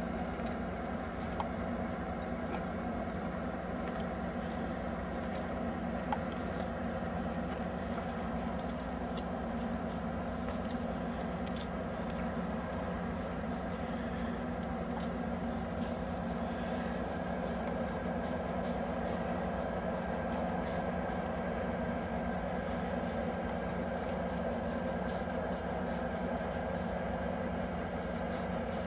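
Fracking well machinery, its engines and pumps giving a steady, unbroken drone with a constant hum, and a couple of faint clicks near the start.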